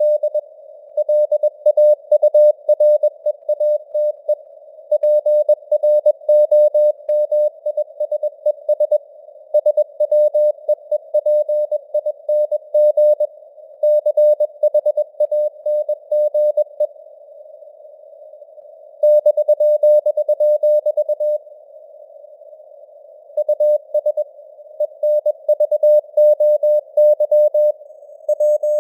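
Morse code (CW) keyed at 21 words per minute: a single mid-pitched beeping tone in quick dots and dashes over a narrow band of simulated radio hiss. The sending breaks off twice for about two seconds each past the middle.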